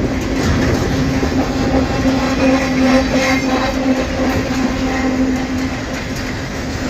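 Freight wagons of a long train rolling past, steel wheels clattering over the rail joints, with a steady humming tone.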